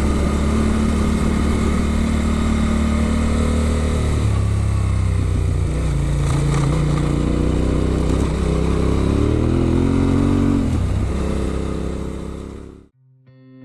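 Adventure motorcycle with an Arrow exhaust being ridden. The engine note steps and rises and falls with the revs, over rushing wind and road noise, and cuts off abruptly near the end.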